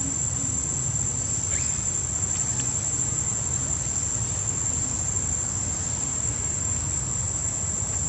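A continuous, high-pitched drone of insects that holds one steady pitch, over a low rumble.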